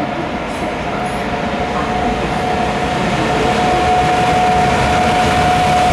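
SNCB Class 18 electric locomotive hauling double-deck coaches as it approaches along the platform. The rumble of the wheels carries a steady high whine, and both grow louder as it nears.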